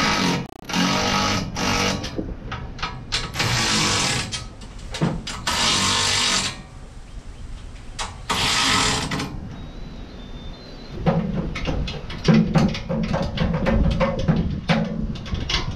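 12V Enertwist cordless electric ratchet running in four short bursts of about a second each, driving the seat-to-subframe bolts home. About eleven seconds in, background music with a steady drum beat comes in.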